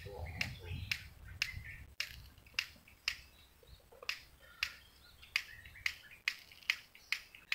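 A string of sharp clicks, about two a second and unevenly spaced, over a low rumble that fades out about three seconds in.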